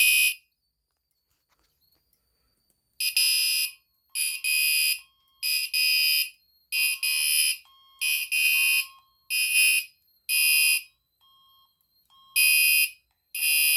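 Gentex Commander 3 fire alarm horn sounding a run of short, high-pitched beeps, each under a second long, in uneven groups. The beeps begin about three seconds in, after a quiet start.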